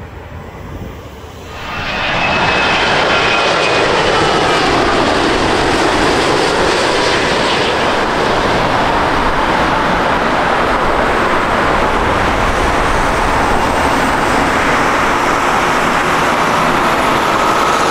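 Boeing 787-9 airliner's jet engines on low final approach. A loud, steady rush with faint whining tones comes in sharply about two seconds in and holds as the plane lands.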